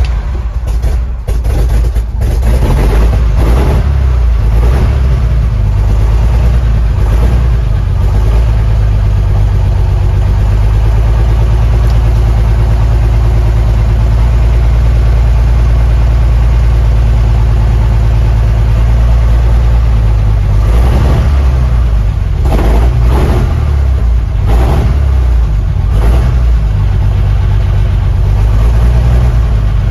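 1956 International R200 tow truck's International six-cylinder gas engine with true dual exhausts catches and fires, running unevenly for the first couple of seconds. It then settles into a steady, loud idle, heard from inside the cab. A few short revs come about twenty seconds in.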